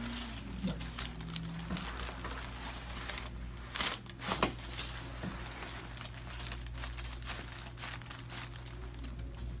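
Crinkling and rustling of the paper cover on a chiropractic treatment table as a patient is handled and shifts on it, with a couple of sharper clicks about four seconds in.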